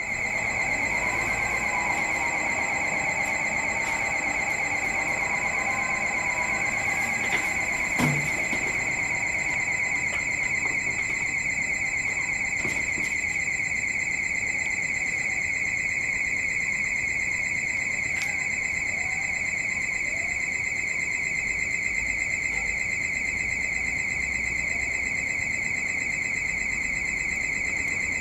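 A continuous high-pitched warbling alarm tone that holds steady and unchanging.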